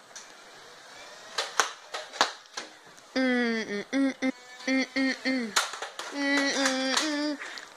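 A child's high-pitched voice calling out in short, repeated vocal sounds from about three seconds in, after a few sharp clicks.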